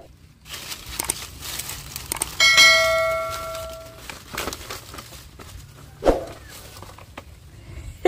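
A bright bell-like ding, the chime of a subscribe-button animation, sounds about two and a half seconds in and fades over about a second and a half. Around it, dry leaves and sticks rustle and crackle as a hand digs a plastic toy bus out of the undergrowth.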